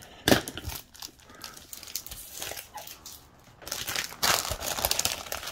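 Thin clear plastic kit bag crinkling as a plastic sprue is slid out of it, with a sharp click just after the start and louder, denser crinkling in the last two seconds.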